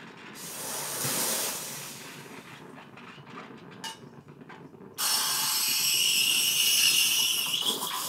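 Gaggia Classic Evo steam wand releasing steam. A first hiss fades over the opening seconds. About five seconds in, a louder steady hiss with a high tone starts as the wand steams milk in a jug, and it drops back just before the end.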